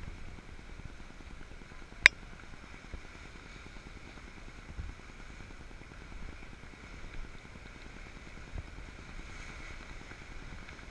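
Steady rush of wind and choppy surf washing around pier pilings. One sharp click comes about two seconds in.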